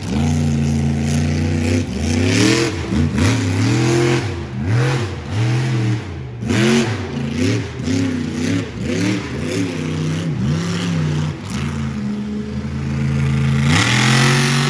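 A 1,500-horsepower competition monster truck's supercharged V8 revving hard again and again, its pitch climbing and dropping about once a second as the throttle is worked on and off. Near the end it holds at high revs.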